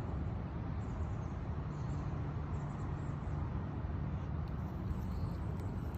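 Outdoor background noise: a steady low rumble, with a faint low hum holding for a few seconds in the middle.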